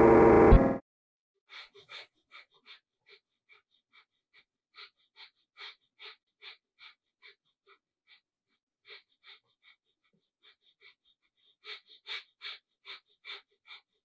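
A loud electronic buzz cuts off suddenly about a second in. Then a man breathes through his nose in short, sharp puffs, two or three a second with a few pauses, as a nose-breathing yoga exercise.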